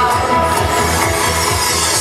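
Electronic pop music with a steady beat, in an instrumental stretch between sung lines.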